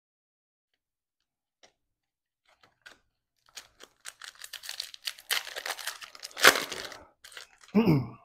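A plastic trading-card pack wrapper being torn open and crinkled by hand, starting about three and a half seconds in, with one loud rip about six and a half seconds in.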